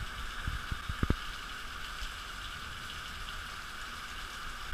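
Heavy rain falling steadily, a constant hiss of rain, with a few faint taps about a second in.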